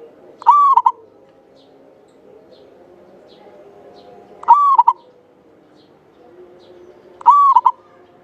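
Javanese local zebra dove (perkutut) singing: three loud cooing phrases a few seconds apart, each an arched note followed by two quick clipped notes. Faint high chirps of small birds in the background.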